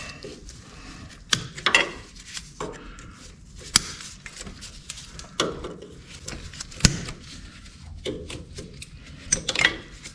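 Irregular metallic clinks and knocks of hand tools working on the truck's front wheel hub, sharp clicks every second or two.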